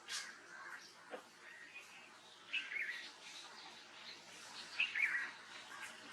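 Small birds chirping in short bursts of quick rising and falling notes, twice, with a few faint ticks between them.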